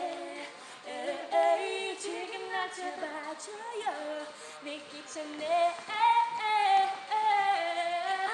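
Two women singing a pop song into handheld microphones, their voices changing note every half second or so, with no clear backing beat.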